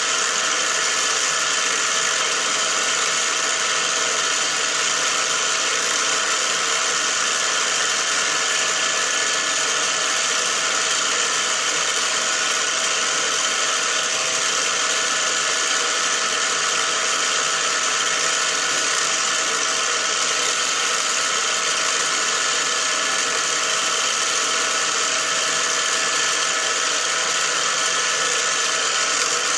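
Small milling machine running steadily, its motor and spindle drive giving an even hum with a few fixed tones.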